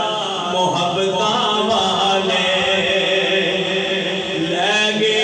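A man singing an Urdu naat into a handheld microphone, drawing out long notes that glide slowly up and down.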